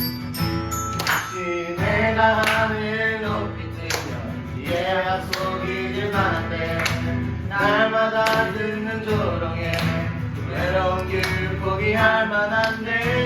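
A group of singers performing a worship song, with instrumental accompaniment underneath.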